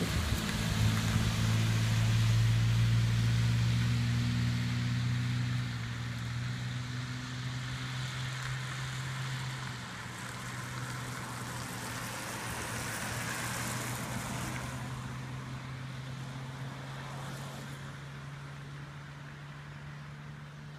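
Motor vehicle engines running with a steady low hum that is strongest at first and gradually fades, over a haze of road and wind noise.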